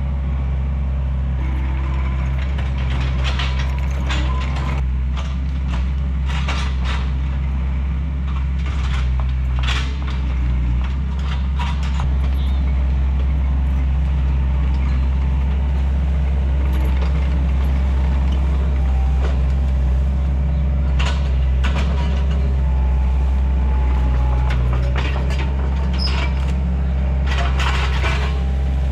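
Takeuchi TL130 compact track loader's diesel engine running steadily, with scattered sharp clanks and knocks from the machine at work.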